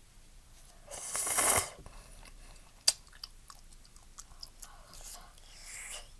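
Close-miked eating of instant udon noodle soup: a loud slurp about a second in, then chewing with scattered small mouth clicks and a softer slurp near the end.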